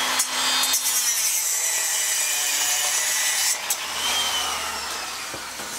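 Handheld power grinder grinding down a small nylon part on an outboard's linkage, a steady grinding whir. About three and a half seconds in the trigger is let off and the motor's whine winds down.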